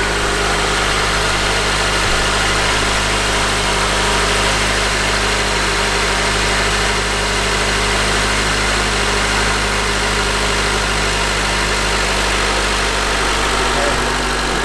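Acura TSX wagon's 2.4-litre four-cylinder engine idling steadily, just started and left to run so air bleeds out of the freshly filled cooling system.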